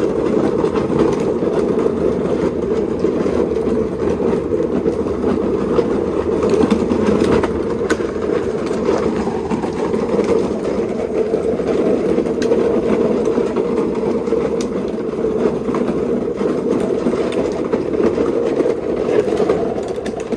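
Petrol lawn mower being pushed with its engine off, its wheels rolling over the ground with a steady rattle.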